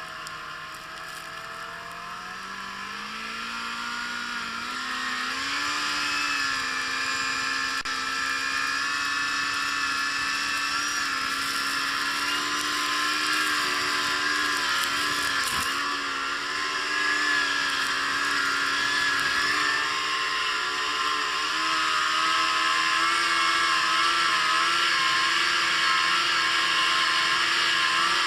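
Yamaha Apex RTX snowmobile's four-stroke four-cylinder engine accelerating over the first few seconds, then holding a steady cruising speed. There is a brief dip in revs about halfway through and a slight rise later on.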